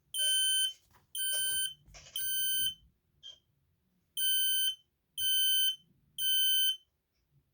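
X-Sense sealed lithium-battery photoelectric smoke alarm sounding its test alarm: two rounds of three loud, even, high-pitched beeps about half a second each, with a pause between rounds, the standard temporal-three evacuation pattern.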